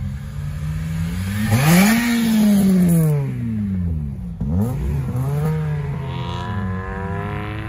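Honda Civic Type R four-cylinder engine accelerating hard away, its revs climbing to a loud peak about two seconds in and then dropping through a gear change around four and a half seconds. A second car's engine pulling away follows near the end.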